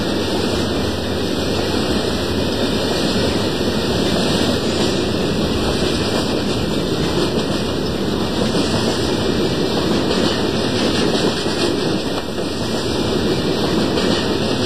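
HO scale model freight train rolling past close by: the steady rumble of its cars' wheels running on the track.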